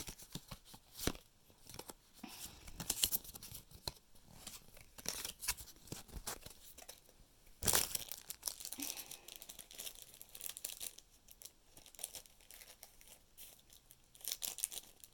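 Movie disc packaging handled close to the microphone: plastic and paper rustling and crinkling in irregular bursts, with a louder crackle about halfway through.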